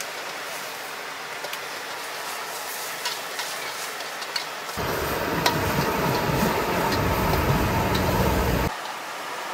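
Roadside street-food stall ambience: a steady background hiss with scattered light clicks and clatter. About halfway through, a louder low rushing roar sets in, holds for about four seconds, then cuts off abruptly.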